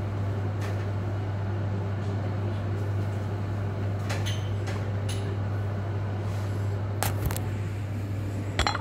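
A steady low hum from room equipment, with a few scattered light knocks and clicks as objects are handled, and a quick cluster of handling clicks near the end.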